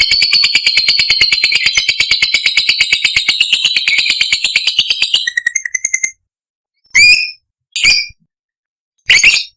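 Lovebird doing its long 'ngekek' trill: a rapid chattering run of high notes, about ten a second, that lasts about six seconds and breaks off, followed by three short, sharp shrieks.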